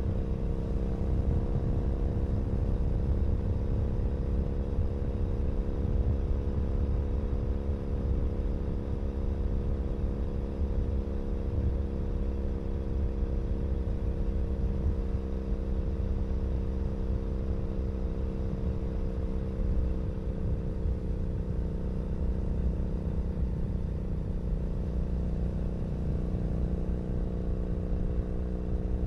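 A 2012 Triumph Bonneville SE's 865 cc parallel-twin running through a British Customs Predator aftermarket exhaust, heard close at the exhaust, while the bike cruises at a steady throttle with a deep rumble. Engine pitch sags a little through the middle and climbs slightly near the end.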